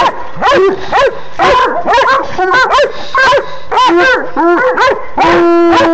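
Coonhounds baying at a raccoon in a wire live trap: a rapid string of short, rising-and-falling barks, about three a second, ending in one long drawn-out bay.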